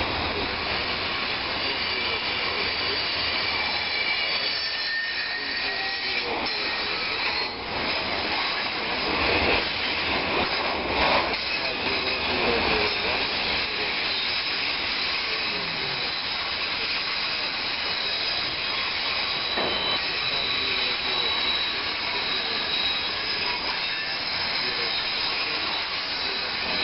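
Container freight train's loaded flat wagons rolling past at steady speed: a continuous rush and rumble of steel wheels on the rails, with thin high whining tones above it and a few clunks.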